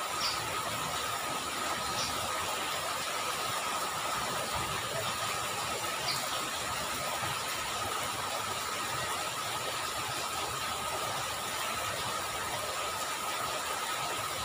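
Steady rain falling on a flooded street and into standing puddles, an even hiss, with a faint steady high tone running under it and a few faint high chirps.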